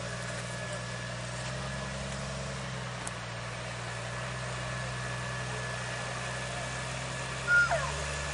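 An off-road vehicle's engine runs steadily at low revs. About seven and a half seconds in, a brief, loud, high squeal cuts across it, and just after that the engine note steps up slightly.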